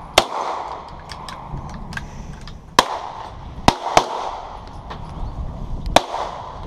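Daewoo DH40 pistol in .40 S&W being fired five times at an uneven pace, with one quick pair of shots in the middle. Each shot is a sharp crack followed by a short echo.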